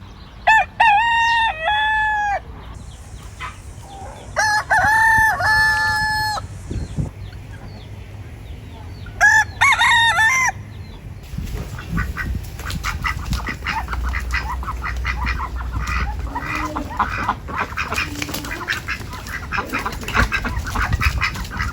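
Roosters crowing three times, each a long pitched call, then from about halfway through a flock of chickens clucking in a dense, continuous patter.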